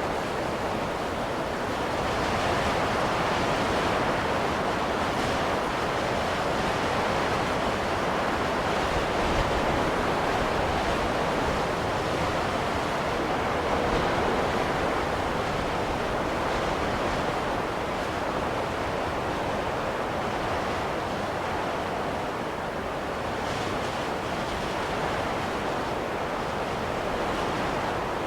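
Steady wind of a snowstorm, an even rushing noise that swells and eases slowly without gusting hard.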